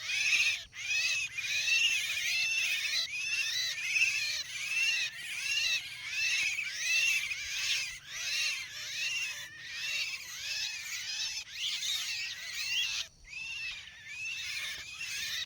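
Javan mynas (jalak kebo) calling: a continuous run of harsh, arched chattering notes, about two a second, with many calls overlapping.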